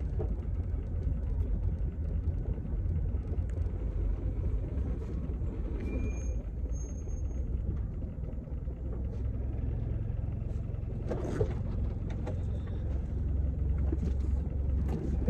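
Low, steady rumble of a car idling, heard from inside the cabin, with a brief sharp knock or rustle about eleven seconds in.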